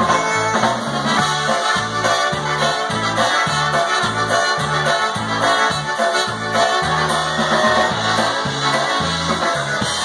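Live polka band playing an instrumental stretch with trumpets, over a steady oom-pah bass beat of about two notes a second.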